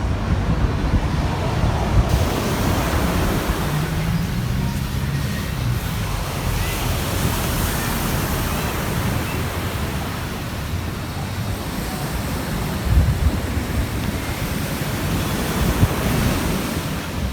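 Ocean surf breaking and washing on a beach, a steady wash of noise, with wind buffeting the microphone.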